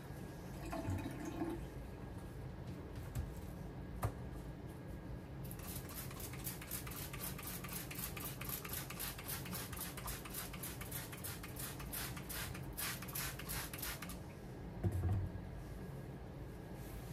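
Trigger spray bottle of cleaner sprayed over and over in quick short hisses, about four a second, starting about five seconds in and stopping about nine seconds later. A soft thump comes near the end.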